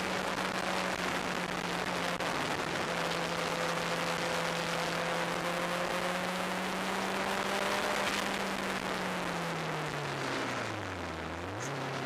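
Onboard sound of a turbocharged, open-cockpit track car at speed: the engine holds a steady high note under heavy wind rush. About nine seconds in, the revs fall away as the car slows for a corner, with a brief rise in pitch near the end.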